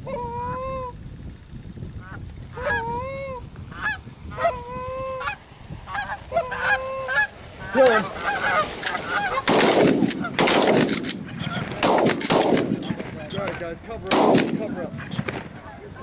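Geese honking, a run of repeated rising-and-falling calls, then about eight seconds in a rapid volley of shotgun shots, some six or seven over several seconds, with honks still heard between them.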